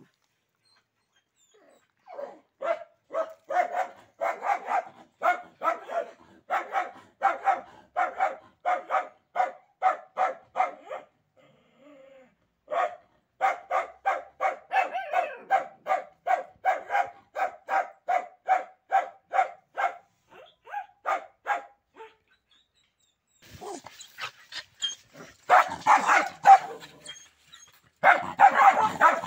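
A dog barking over and over at a steady pace of about two to three barks a second, in two long runs with a short pause between them. Near the end come louder, rougher, noisier sounds.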